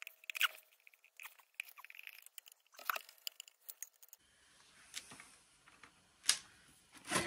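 Light metallic clicks and taps of a screwdriver working slotted screws and handling the sheet-metal cover of a National 160 cash register, with a sharper clack a little after six seconds and a louder clatter of knocks near the end.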